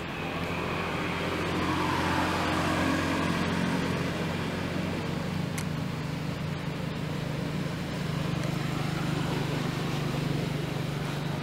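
A motor vehicle's engine running unseen, a steady low hum that swells about two seconds in and then holds.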